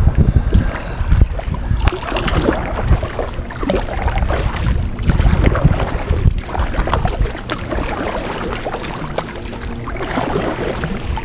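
Kayak paddle dipping and splashing in the water, stroke after stroke, with wind buffeting the microphone.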